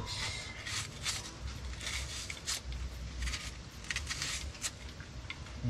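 Irregular light clicks and rustles of food and utensils being handled in a bowl while seasoning meat, several small sounds a second over a low steady hum.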